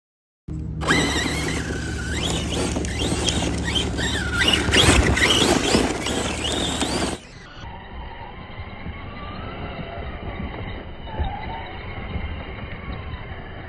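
ARRMA Big Rock 6S RC monster truck's brushless motor whining, rising and falling in pitch as it revs hard, with its tyres spinning and sliding in loose dirt. About seven seconds in, the sound drops suddenly to a quieter, duller recording of the same kind.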